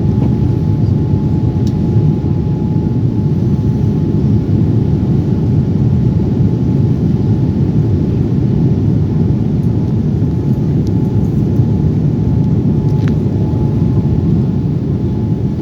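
Airliner cabin noise: a steady low rumble of engines and airflow, with a faint steady whine above it.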